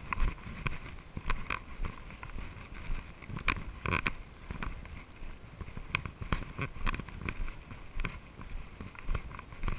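Mountain bike rolling over a bumpy, leaf-covered dirt trail: irregular rattles and clicks from the bike over the bumps, over a low rumble of wind and tyres on the microphone.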